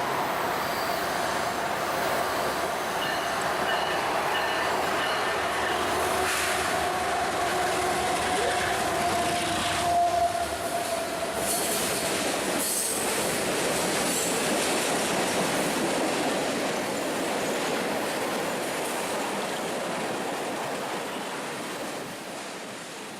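Amtrak passenger train rolling past, its wheels and cars giving a steady rumble with drawn-out wheel squeal tones. It fades away near the end as the train moves off.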